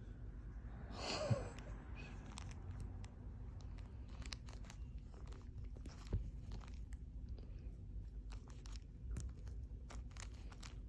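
A kitten chewing and crunching, with many small irregular clicks and a louder brief rustle about a second in.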